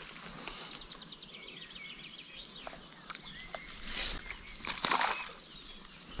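Small birds singing, with a quick repeated trill about a second in. Two brief whooshes about four and five seconds in, as the fly line is cast through the air.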